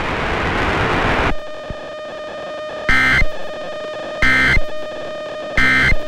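Emergency Alert System end-of-message code: three short, loud data bursts about a second and a half apart, after a second of static hiss. The bursts close the severe thunderstorm warning broadcast.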